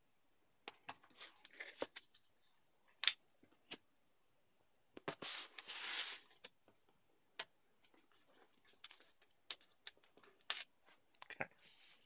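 Handling noise from a motherboard in its foam packing on a cardboard box: scattered light clicks and taps, with a rasping scrape of about a second near the middle.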